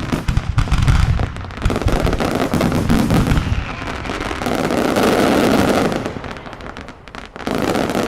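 Daylight fireworks going off in a rapid, dense salvo of bangs and crackles. The sound thins out about six seconds in, then comes back with a short loud burst near the end.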